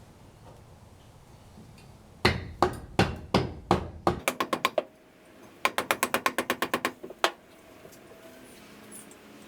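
A hammer striking metal vise parts. It lands five spaced blows, then a quick run of lighter taps, then after a short pause a fast run of about a dozen taps with a last single blow, each with a short metallic ring.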